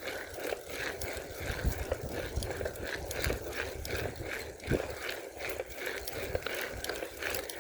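Mountain bike being ridden: tyre noise with irregular knocks and rattles from the bike over the ground.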